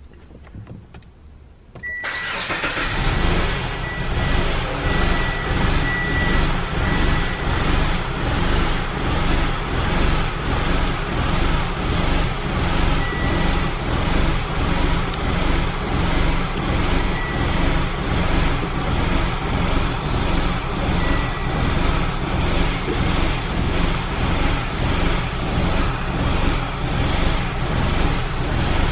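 A 2019 Mitsubishi Outlander's engine starts about two seconds in, then runs rough, its speed surging up and down in a steady pulse, heard from inside the cabin. The hunting idle and shaking come from a failed throttle position sensor (codes P0123 and P0222).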